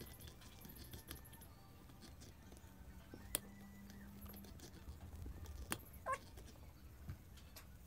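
Quiet room hum with a few sharp, isolated clicks as small electronic parts and wires are handled on a table, and a brief faint whine about six seconds in.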